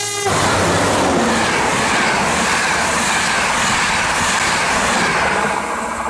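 The tail of an OSE class 220 ADtranz diesel locomotive's horn, which cuts off a fraction of a second in. Then the locomotive and its passenger coaches pass close at speed in a loud, steady rush of engine and wheel noise, with a tone sliding down in pitch as the locomotive goes by. The rush eases slightly near the end.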